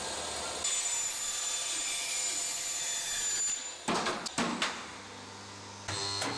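Moving parts of a Rube Goldberg kinetic sculpture: a steady rolling, whirring noise with a faint high whine that stops about three and a half seconds in. Then comes a quick run of clacks and knocks, and near the end a new steady whir starts.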